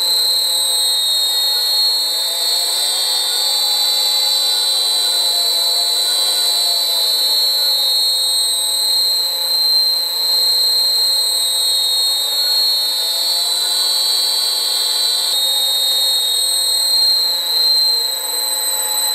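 Electric lathe motor running on a variable frequency drive at its default carrier frequency. A loud, steady high-pitched whine comes from the drive's switching, and fainter tones rise and fall as the speed knob is turned. This is the harmonic noise the motor makes at that setting, a disappointment to the owner.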